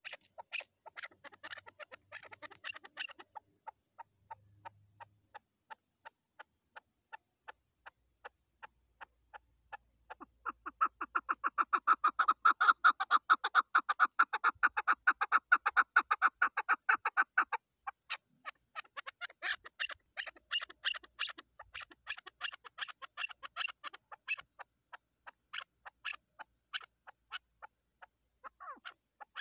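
Female chukar partridge calling: a long series of short, repeated chuck notes, sparse at first, then a fast, loud run from about ten seconds in to about seventeen, then another quick series that thins out towards the end.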